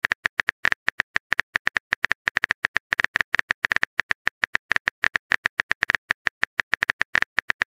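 Rapid, even clicking of a phone keyboard typing sound effect, about eight to ten clicks a second, as a chat message is typed out.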